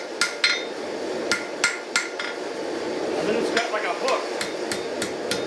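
Hand hammer striking red-hot steel on an anvil, each blow with a short metallic ring. There are a few spaced blows in the first two seconds, then a quicker run of lighter strikes near the end. The smith is bending the pickaroon's spike into its upward sweep.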